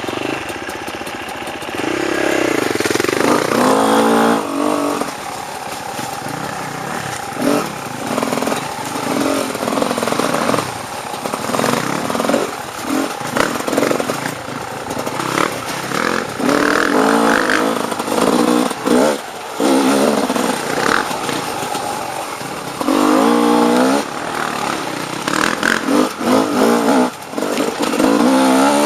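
Off-road dirt bike engine revved in repeated throttle blips and surges, pitch climbing and dropping, with strong rev swells a few seconds in and again near the end.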